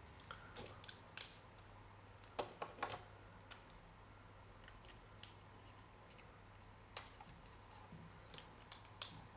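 Faint, scattered clicks and taps at an uneven pace, the sharpest a few about two and a half seconds in and one about seven seconds in, over a faint low hum.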